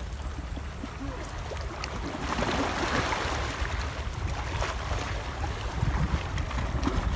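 Wind buffeting the microphone over small waves washing against a rock breakwater, the wash swelling about two seconds in, with a few faint clicks.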